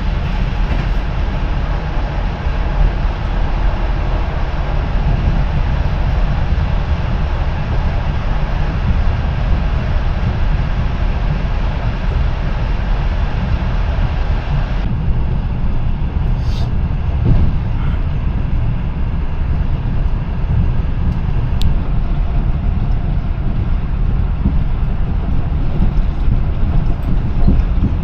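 Steady rumble and rail noise of a moving passenger train, heard from inside the carriage. A train passes close by on the next track for about the first half, and its rushing noise drops away suddenly about halfway through.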